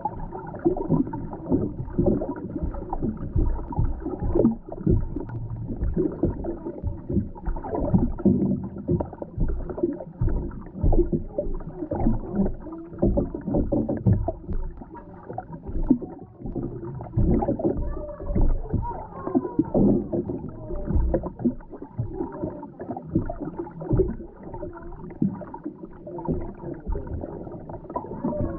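Muffled underwater sound picked up by a submerged camera: irregular knocks and thumps over a low rumble of moving water.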